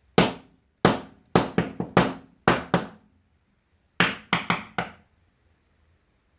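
Sharp knocks on a flat bike pedal's parts during a rebuild, each with a short ring: nine quick knocks, a pause of about a second, then four more.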